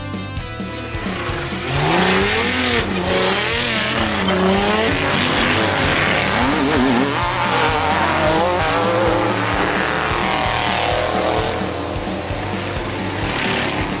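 Off-road race vehicles' engines revving hard through loose dirt, the pitch rising and falling again and again as the throttle is worked. It comes in about two seconds in and fades near the end.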